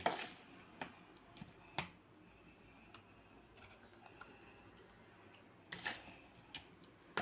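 A metal spoon clicking and scraping against a bowl and the peppers as rice-and-tomato stuffing is scooped up and pressed into hollowed green peppers: quiet, irregular light taps, with a few sharper knocks at the start, about two seconds in and near six seconds.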